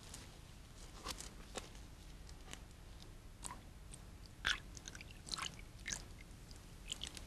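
Faint, irregular small clicks and drips from a bronze water clock (clepsydra) as it is filled and set dripping.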